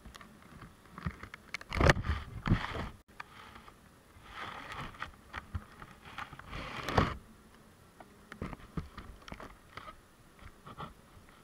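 Honeybees crawling close to the microphone inside the hive: irregular scratching and tapping, loudest about two seconds in and again around seven seconds.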